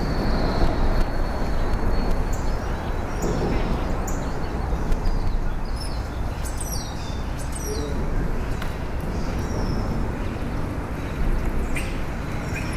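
Songbirds chirping and calling, with a cluster of quick falling chirps about halfway through, over a steady low outdoor rumble.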